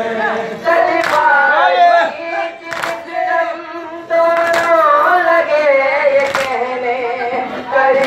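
A crowd of Shia mourners chanting a nauha, a Muharram lament, together in a slow sung line. Sharp slaps land in time with it about every two seconds: matam, the mourners striking their chests.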